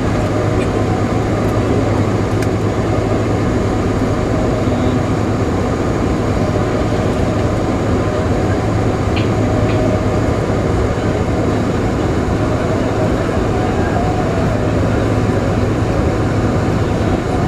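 Cabin noise inside a Boeing 747-436 during taxi: its Rolls-Royce RB211 engines running at low thrust, heard as a steady hum with a low drone.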